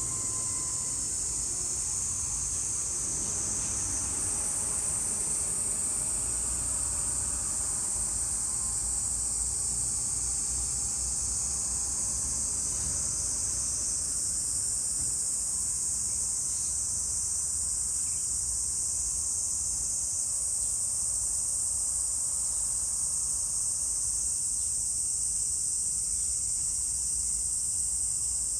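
Cicadas in chorus: a steady, unbroken high-pitched drone of summer insects.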